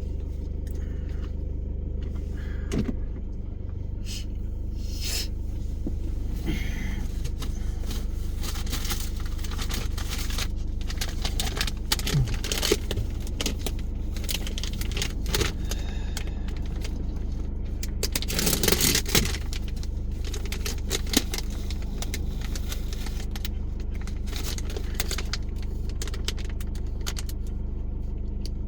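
Car cabin while driving: a steady low engine and road drone, with frequent light rattling and jingling, busiest about twelve seconds in and again near nineteen seconds.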